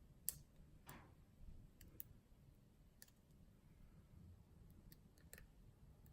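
Faint, scattered clicks and ticks of a needle pick and tension tool working the pins of a pin-tumbler lock while it is being picked in the hand; the sharpest tick comes about a third of a second in, with a small cluster of clicks near the end.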